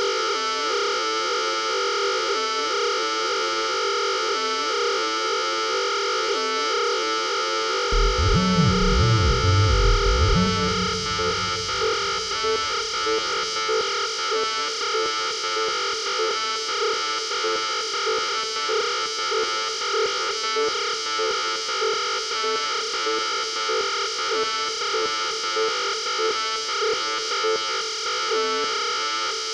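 Arturia Buchla Easel software synthesizer playing a sustained, distorted tone whose pitch wobbles up and down over a hiss of noise. About eight seconds in, a loud low sound comes in for a couple of seconds and then fades away, leaving the tone pulsing rhythmically.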